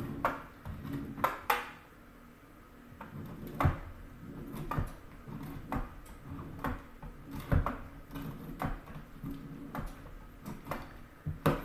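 A block of hard Parmesan being grated on the fine side of a stainless steel box grater, in uneven rasping strokes about one a second.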